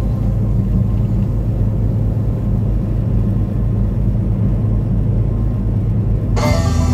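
Steady low drone of a semi truck's engine and road noise inside the cab at highway speed. Near the end, country-style music with plucked strings comes in over it.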